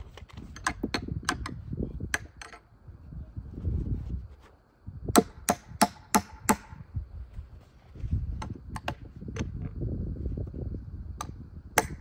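Repeated sharp knocks, as of something hard being struck, in several short runs of quick strikes, the strongest a run of five about five seconds in. A low, uneven rumbling noise lies beneath them.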